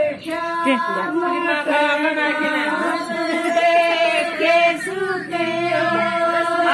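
A group of women singing a Haryanvi jakdi folk song together, on long held notes.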